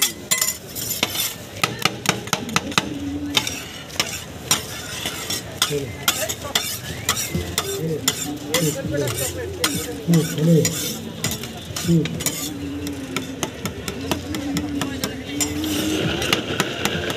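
Two steel spatula scrapers chopping and scraping ice cream on a stainless-steel rolled-ice-cream cold plate: a rapid, irregular run of sharp metal taps and scrapes.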